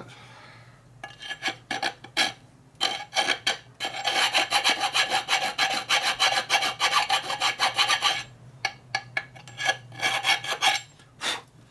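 Hand file rasping on metal: a few separate strokes, then a steady run of rapid strokes for about four seconds, then scattered strokes again, cutting metal away to correct a part's fit.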